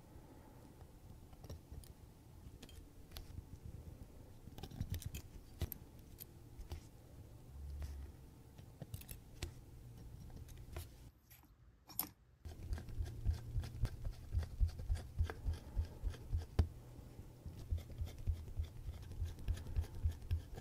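Small metal clicks and taps of watchmaker's tools on a pocket watch movement, over a low steady hum. After a brief break about twelve seconds in, the clicks come faster, several a second.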